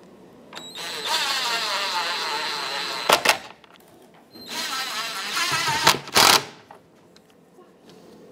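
Cordless impact driver spinning a steel stud into a plastic intake manifold, the stud cutting its own threads. It runs twice, for about two seconds and then about a second and a half, and each run ends in a short, louder burst as the stud bottoms out.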